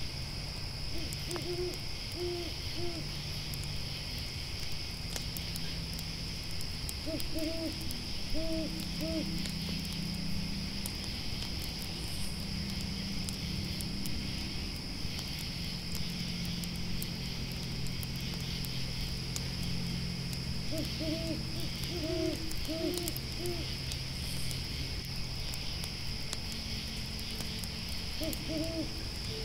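An owl hooting in short runs of three or four hoots, repeating every several seconds over a steady chirring of grasshoppers and the faint crackle of a campfire. A low steady hum runs underneath, shifting pitch partway through.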